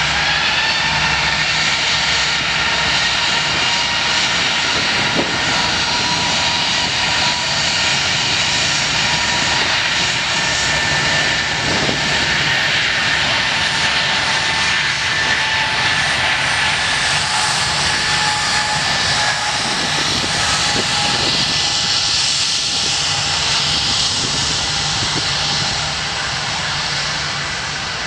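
Jet airliner engines running: a loud, steady whine over a broad rush of jet noise, easing a little near the end.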